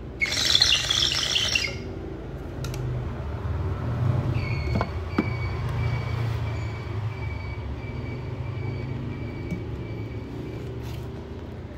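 Cordless hair clipper running in a steady high whine as it cuts over a comb, over a constant low rumble of traffic. A loud, harsh high-pitched sound lasts about a second and a half at the start.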